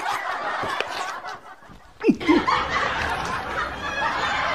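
Snickering laughter, which drops away about a second and a half in and starts up again sharply about two seconds in.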